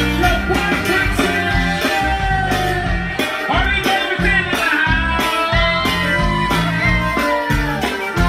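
Live Tejano-style band playing: button accordion and twelve-string guitar over drums, with a steady beat.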